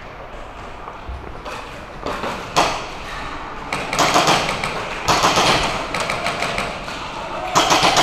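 Airsoft guns firing in short bursts of rapid shots, several bursts a second or so apart, with the BBs cracking against hard surfaces.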